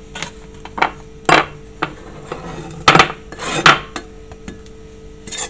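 Kitchen dishes and utensils being handled, with about eight sharp knocks and clinks; the loudest come about one and a half, three and three and a half seconds in, over a faint steady hum.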